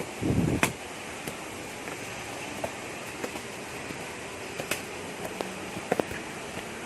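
Steady rush of a waterfall, with scattered sharp clicks and a low thump followed by a sharp click about half a second in.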